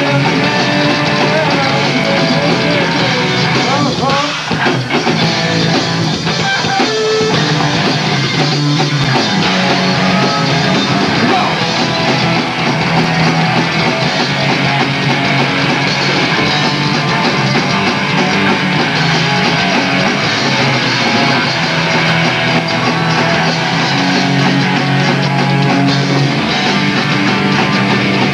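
Live punk rock band playing at full volume: distorted electric guitars, bass and drums, with the singer shouting into the microphone.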